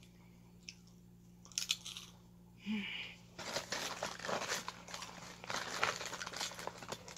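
Close-up chewing of a crunchy snack: a few small mouth clicks at first, then dense, rapid crunching from about three and a half seconds in.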